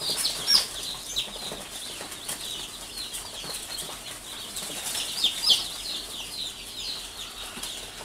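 A box of day-old chicks peeping nonstop: many short, high, falling cheeps overlapping one another, with a few louder ones about half a second in and again around five seconds in.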